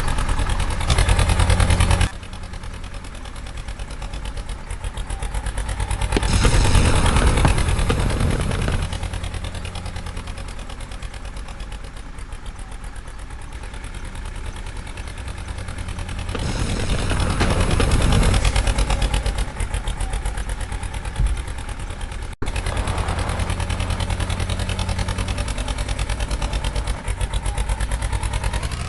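Heavy diesel engine running under load, its revs swelling up and dropping back twice, with sudden changes in loudness about two seconds in and again past the twenty-second mark.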